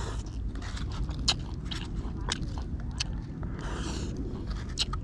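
A person eating with chopsticks from a styrofoam food box: scattered chewing and small clicks of the chopsticks against the box, with a brief rustle just before four seconds in.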